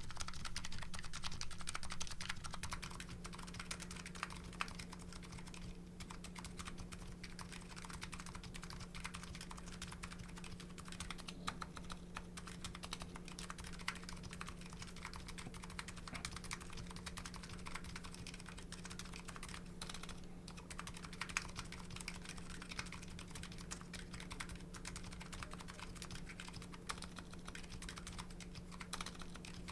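Continuous fast typing on a Nuxros Kraze custom keyboard with MetaKeebs MetaPulse electrocapacitive switches and CRP R5 keycaps: a dense, unbroken stream of key clacks.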